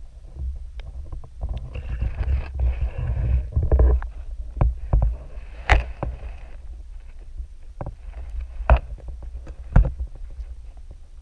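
Muffled underwater sound through a GoPro's waterproof housing: a steady low rumble with scattered sharp clicks and knocks, and a hissing rush about two seconds in and again near the middle.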